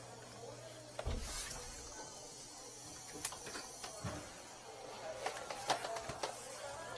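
Handling noises from drain-cleaning gear being moved about: scattered knocks and clicks, with a thump about a second in.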